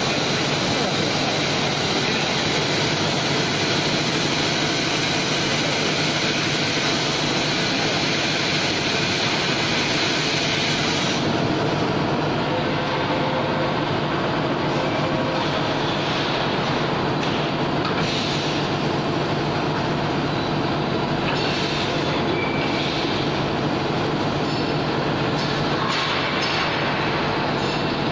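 VMC1600 vertical CNC machining centre running through a program, with the spindle, axis drives and tool on the work making a steady, dense machine noise. A high hiss in the noise drops away about a third of the way through.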